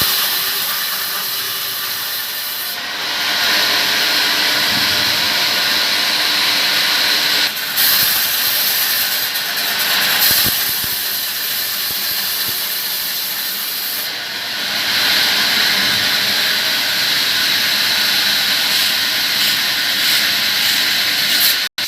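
Sawmill saw cutting palm-tree trunks: a loud, steady, harsh hiss that shifts in level every few seconds as the cut goes on.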